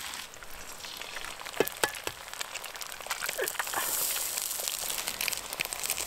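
Food sizzling in a frying pan over a camp stove, a steady hiss, with two sharp clicks of a utensil about a second and a half in.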